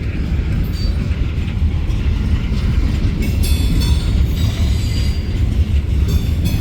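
Freight train cars rolling past close by: a steady, heavy rumble of wheels on rail, with a few short, high metallic squeals from the wheels partway through.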